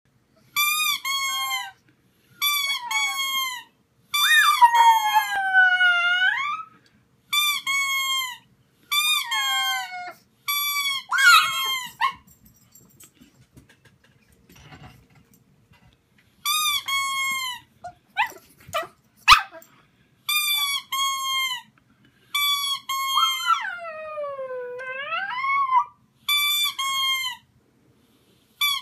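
Rubber squeaky toy squeezed in quick runs of two to four squeaks, each a short falling note. Twice a pug answers with a long howl that dips in pitch and rises again.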